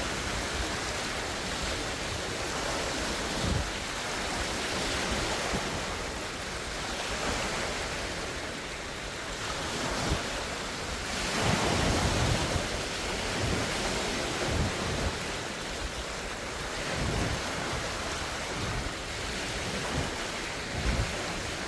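Large wind-driven lake waves breaking and splashing on the shore in surges that swell and ebb every few seconds, with wind gusting against the microphone.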